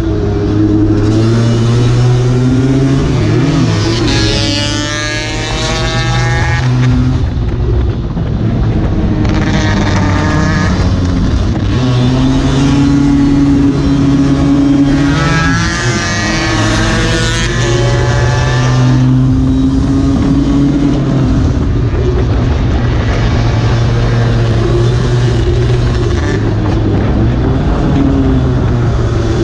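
Lambretta racing scooter's single-cylinder two-stroke engine running hard, heard from onboard over wind rush. The revs drop and climb again several times.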